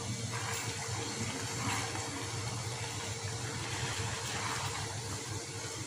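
Spaghetti being tossed and mixed into tomato sauce in a pan with a spatula and fork, faint against a steady rushing noise with a low hum underneath.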